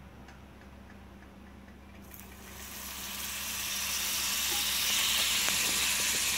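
A pat of butter sizzling as it melts in a hot frying pan; the sizzle starts about two seconds in and builds to a steady hiss.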